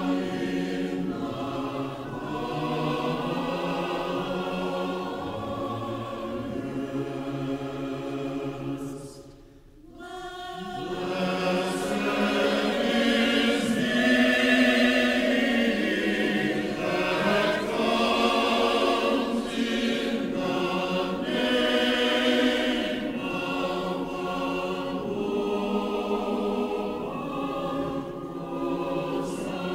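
Orthodox church choir singing liturgical music a cappella in sustained chords. The singing falls away for a moment just before ten seconds in, then comes back fuller and louder.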